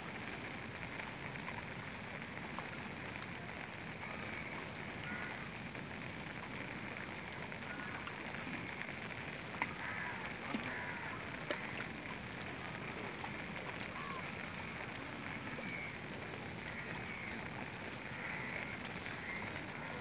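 Steady open-air hiss of wind and water around wooden fishing canoes, with faint voices of the fishermen. Three short sharp knocks come about ten seconds in.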